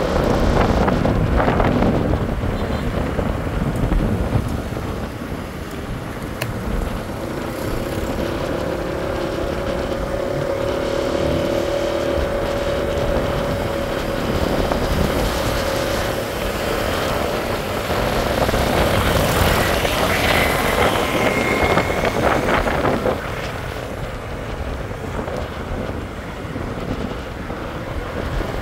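Street traffic: motor vehicles passing, with their engines running in a continuous din.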